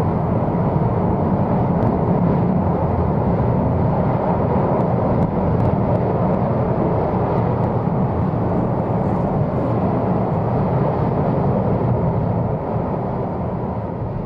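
Steady deep roar of a Mount Etna lava fountain erupting, fading out near the end.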